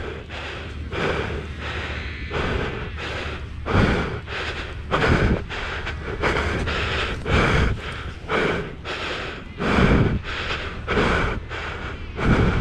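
A person panting hard while hurrying across sand, one loud breath every half second to second.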